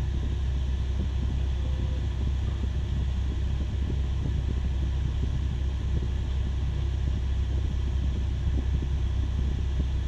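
Cat 6020B hydraulic mining shovel's engine running with a steady, unbroken low rumble.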